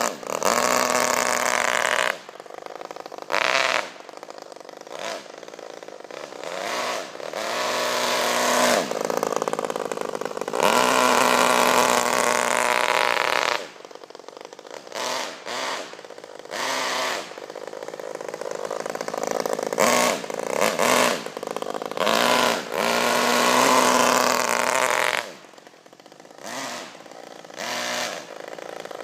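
Modified Saito FA-50 four-stroke glow engine in an RC car, revving repeatedly: loud full-throttle runs of a few seconds each, with short throttle blips and quieter lower-rpm stretches in between. The car stays in one gear because its two-speed transmission is not set to shift.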